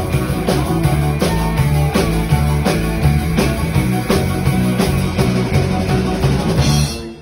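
Live rock band playing an instrumental stretch with no vocals: a drum kit keeps a steady beat under electric guitar and bass. Near the end the band cuts off abruptly.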